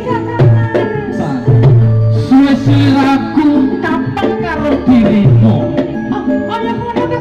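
Live campursari band music through a PA system: a steady hand-drum pattern over a repeating bass line, with a singer's voice on top.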